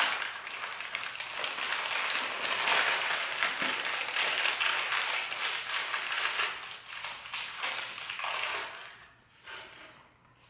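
Newspaper crinkling and rustling as it is crumpled and pushed into a vase, a dense crackle that thins out about eight seconds in, with one short rustle after.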